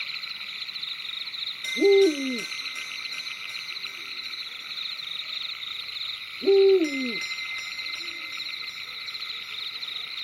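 Owl hooting twice, about four and a half seconds apart, each call a short hoot that slides down in pitch, followed by a faint softer call. Under the hoots runs a steady, pulsing night chorus of insects or frogs.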